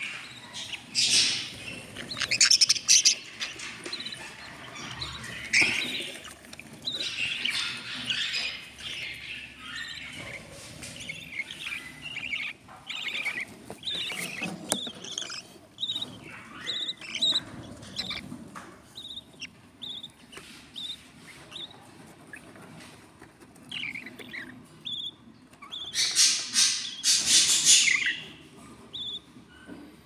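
Budgerigars chirping. There are loud, raspy bursts of calls near the start and again near the end, and a run of short, evenly spaced high peeps in between.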